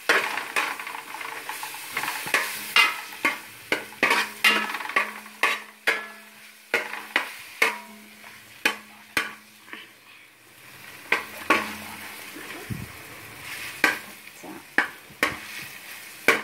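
Metal spoon stirring and scraping onion and ground ginger-garlic-chilli paste frying in oil in a large aluminium pot, with repeated sharp clinks of the spoon against the pot over a light sizzle. The stirring eases briefly near the middle.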